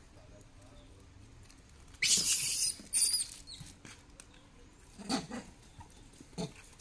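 Macaques calling: a loud, harsh, high scream about two seconds in and a shorter one right after it, then a quieter short call about five seconds in.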